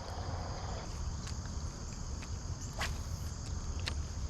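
Insects chirring steadily in a high, even drone, with scattered light clicks and a low rumble underneath.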